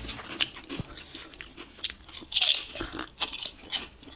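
Crisp crunching and chewing of toasted bread topped with avocado, a run of sharp crackles with a louder crunch about two and a half seconds in.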